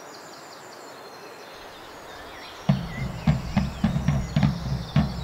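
Birds chirping, then about two and a half seconds in a loud run of rhythmic low thuds begins, about three a second, with the birds still heard over it.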